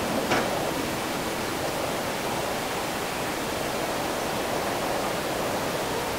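Steady, even hiss of after-rain city ambience, with one short sharp tick about a third of a second in.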